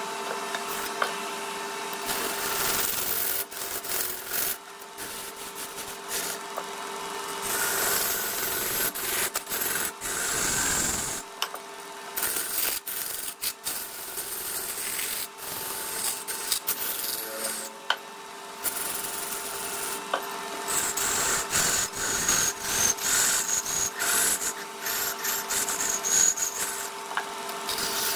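Wood lathe running with a steady motor hum while a hand-held turning tool scrapes and cuts the spinning wood in repeated passes, with many short clicks and chatter.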